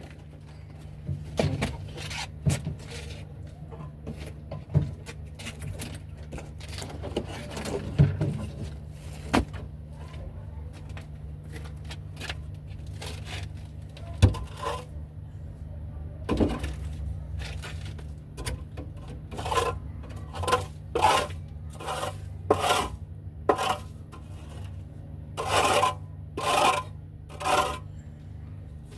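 Hand scraper scraping dirt and droppings off a pigeon-loft floor: scattered knocks and clatter at first, then a run of regular scraping strokes about one a second near the end, over a steady low hum.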